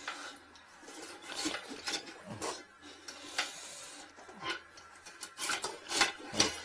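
Irregular scraping and rubbing of a ribbed flexible drain cable or hose against a porcelain toilet bowl as it is worked by hand, with a few sharper knocks, the loudest near the end.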